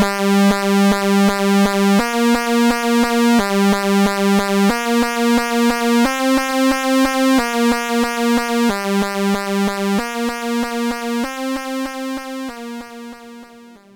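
Moog Werkstatt-01 analog synthesizer playing a pulse wave with its pulse width modulated, a note repeating about three to four times a second and stepping to a new pitch every second or so. It fades away near the end.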